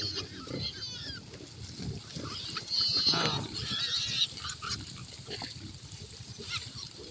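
Farm animals calling: several high, bending cries, loudest about three seconds in, over a busy run of low grunting sounds.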